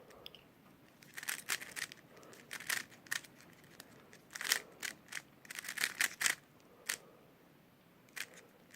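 A QiYi Warrior W 3x3 speedcube being turned mid-solve: irregular clusters of quick plastic clicks from the layer turns, with short pauses between bursts.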